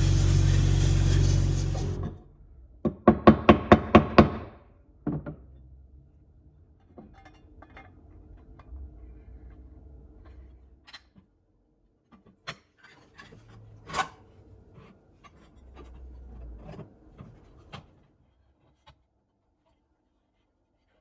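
Workshop sounds from restoring an old coffee grinder: a loud motor-driven tool runs and stops about two seconds in, then six quick ringing taps, then light rubbing and scattered clicks with a sharper knock about halfway through.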